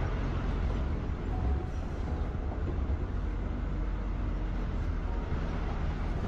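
Steady low rumble of a vehicle driving along a rough, unpaved mountain track, its engine running as it rolls over the gravel.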